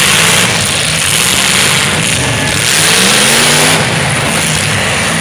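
Demolition derby cars' engines running and revving over a loud, steady din, with one engine climbing in pitch about halfway through.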